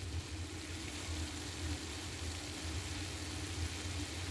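Ground beef, sausage, diced onions and green peppers sizzling steadily in a stainless steel skillet, with a steady low hum underneath.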